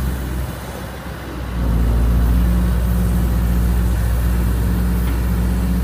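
Diesel engine of a Hyundai 170W-7A wheeled excavator running steadily. It drops back briefly, then picks up and holds about one and a half seconds in as the boom is lifted.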